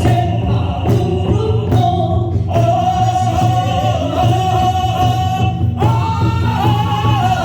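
Korean traditional singing (sori) over music: a voice holds long sustained notes, stepping up in pitch about six seconds in, over a steady low accompaniment.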